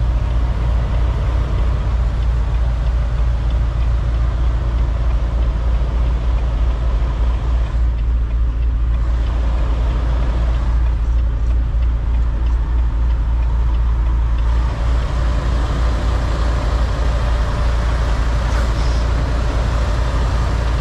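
Semi-truck diesel engine running at low speed, heard from inside the cab as a steady low drone.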